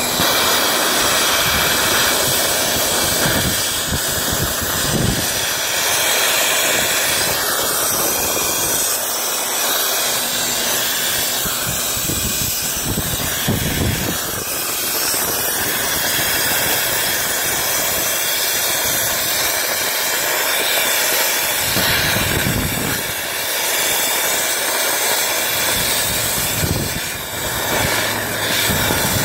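Dryer-vent cleaning equipment running: a loud, steady rush of air through the duct, with a few low thumps now and then.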